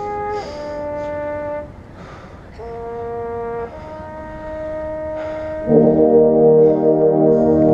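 Drum corps brass line (trumpets and mellophones) playing sustained chords in separate held phrases with short gaps between them, then entering together on a loud, full chord with low notes about six seconds in and holding it.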